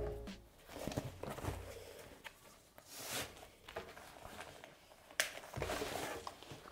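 A shoulder bag being picked up and handled on a wooden table: soft rustling with a few light knocks as its bag and strap shift.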